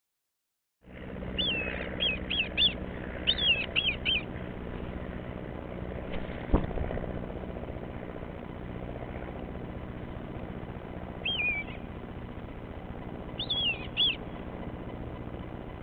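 Red kites calling overhead: short, high, wavering whistles that fall in pitch. They come in a quick run near the start and in two shorter bursts later, over steady background noise. One sharp knock about six and a half seconds in.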